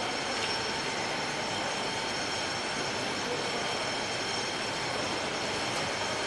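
Sun shade net yarn extrusion line running, a steady machinery noise with several thin, high whines held through it.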